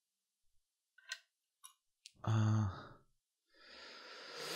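A man's wordless vocal sounds: a few small mouth clicks, a short voiced hesitation sound a little after two seconds in, then an audible exhale near the end.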